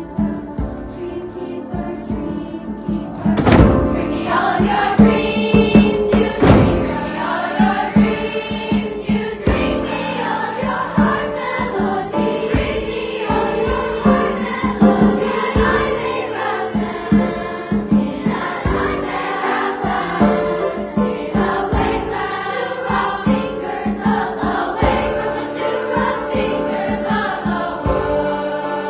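Honors chorus singing in several parts, over a regular pulse of short low accompanying strokes. A sharp, loud stroke comes about three and a half seconds in.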